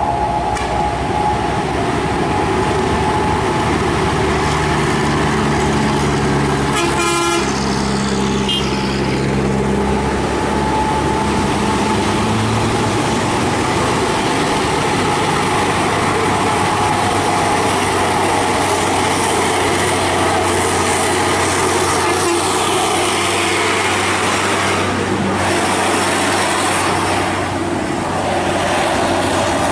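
Heavy trucks' diesel engines running as they pass through a mountain bend, with a vehicle horn sounding at the start.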